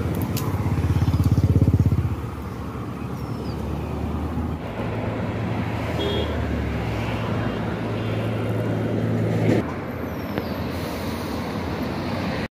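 Motor vehicle engines running, with a louder stretch of fast-pulsing engine noise about a second in and a steady engine hum from about five seconds in that cuts off near ten seconds.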